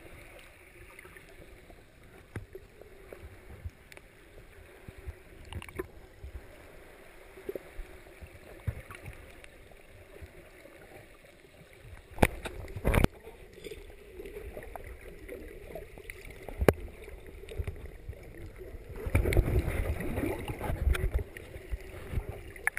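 Muffled underwater ambience of moving water heard through a camera's waterproof housing, with a few sharp knocks and a louder spell of churning water near the end.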